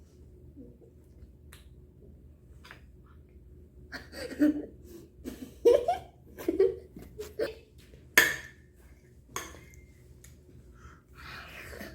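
Ice cream eating sounds: a few sharp clinks of a spoon against a dish, amid short bursts of laughter and vocal sounds in the middle.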